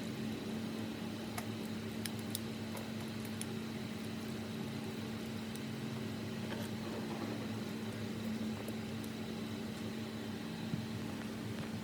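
A machine hum with one steady low tone and a faint high whine, with a few light ticks over it.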